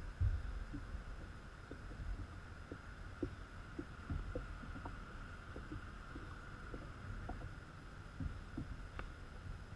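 Low rumbling thumps and scattered small knocks and clicks from the kayak-mounted camera's mount and the kayak hull as the angler shifts his weight, over a faint steady high hum.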